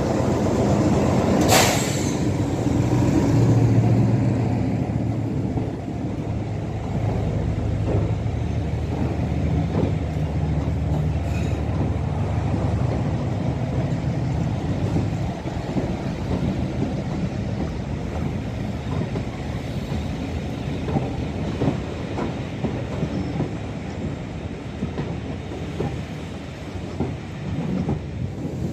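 British Rail Class 03 diesel shunter D2084 passing at low speed with a rake of coaches. Its engine runs with a low note that eases after about six seconds, and there is one sharp clank about a second and a half in. After that the coaches' wheels knock and click over the rail joints as they roll by.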